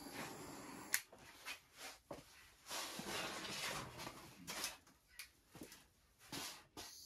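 A small handheld butane torch hisses faintly as it pops bubbles in fresh epoxy, then cuts off with a click about a second in. Scattered soft knocks and shuffling follow, and a sharp click near the end brings the torch's hiss back.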